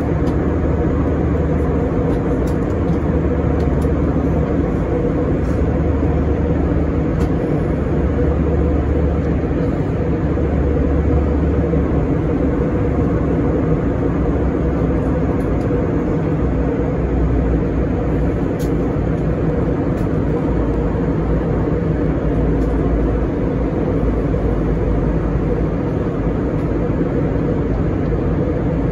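Airbus A321 cabin noise at cruise, heard inside the cabin: a steady, unbroken rush of airflow and engine drone with a low hum underneath.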